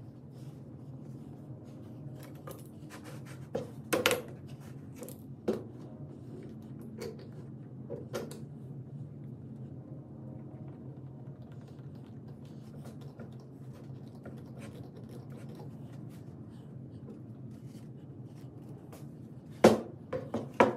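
Scattered clicks and knocks of small objects being handled, the loudest about four seconds in and twice near the end, over a steady low hum.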